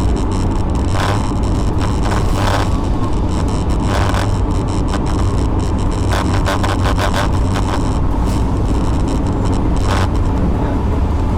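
A vehicle on the road gives a steady low rumble of engine and road noise, picked up by a dashcam. Scattered clicks and knocks sound over it, some in quick clusters.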